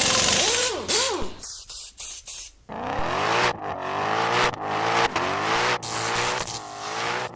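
Car engine revving and accelerating in a quick series of short pitch sweeps, rising and dropping about once a second, with sudden noisy bursts in the first few seconds.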